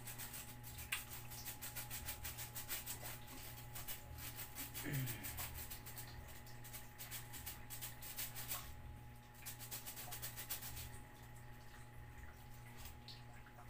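Faint quick clicks and rustles from pets moving about, over a steady low hum, with one short falling animal whine about five seconds in.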